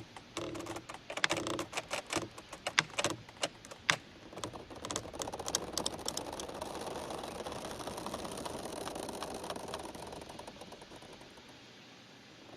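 Giant bamboo stems creaking and squeaking as they sway in the wind and rub against each other. A quick, irregular run of sharp creaks and cracks comes first, then a long, drawn-out grinding creak that fades out near the end.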